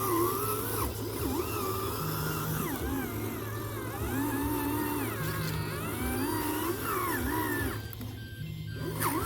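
Background music: a gliding melody over a low bass pulse that repeats steadily, thinning briefly near the end.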